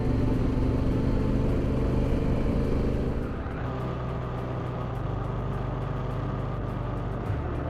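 Honda Africa Twin's parallel-twin engine running steadily under way on a gravel road, with wind and tyre noise. About three seconds in, the sound changes abruptly to a slightly quieter, lower drone.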